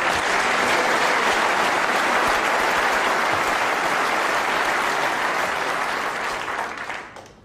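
Snooker arena audience applauding a shot, dense and steady, then dying away near the end.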